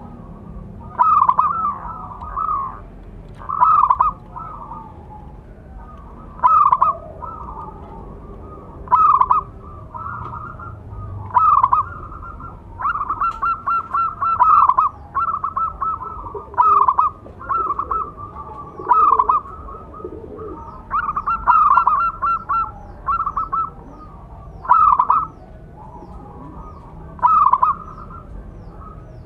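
Zebra dove (perkutut) cooing: short bursts of quick, stuttering coos repeated every one to three seconds. Longer rolling runs of rapid coos come about halfway through and again a little later.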